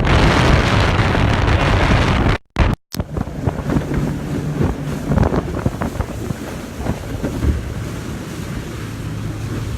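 Skiff running under power, its motor a steady low hum beneath heavy wind buffeting on the microphone and water rushing past the hull. The sound cuts out completely for about half a second, two and a half seconds in, and then returns a little quieter.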